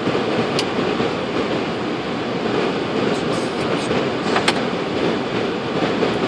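Steady rushing flight-deck noise of a Boeing 747-400 on approach, with a few short sharp clicks, the clearest about four and a half seconds in.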